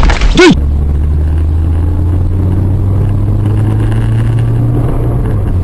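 A man's voice breaks off about half a second in, then a steady low drone of a car's engine and road noise heard from inside the moving car.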